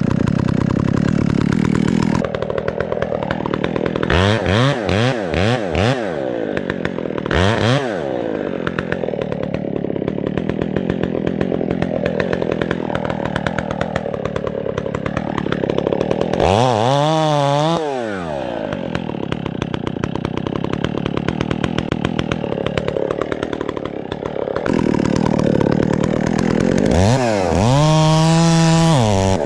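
Husqvarna 372XP two-stroke chainsaw running at high revs, then dropping to a lower steady speed about two seconds in. The throttle is blipped sharply up and down several times in a cluster a few seconds in, once about halfway through, and again near the end.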